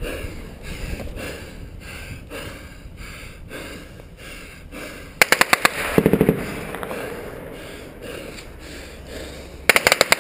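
Close bursts of automatic gunfire: a rapid burst lasting about a second, about halfway through, and another short burst near the end, after a quieter stretch.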